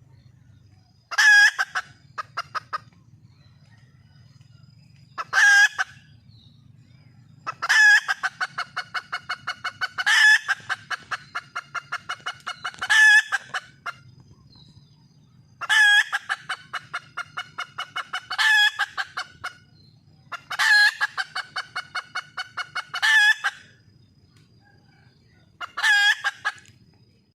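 Wild hen, a female red junglefowl, calling to attract a mate: about ten calls, each opening with a loud high note followed by a quick run of clucks at about six a second.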